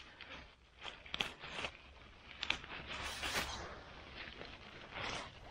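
Faint rustling and scattered light ticks of someone moving and handling things in forest leaf litter, with a slightly louder rustle about three seconds in.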